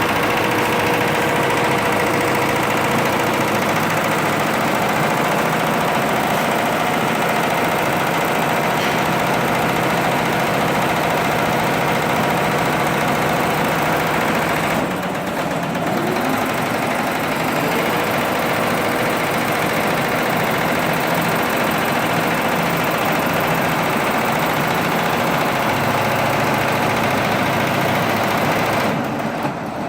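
Six-head embroidery machine running, its needles stitching in a fast steady rhythm. The sound dips briefly about halfway through and again near the end.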